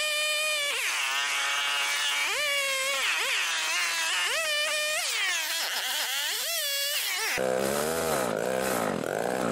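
Homelite XL two-stroke chainsaw revving up and down repeatedly, its pitch rising and falling. About seven seconds in the sound changes abruptly to the saw cutting through a log, running at a lower, wavering pitch.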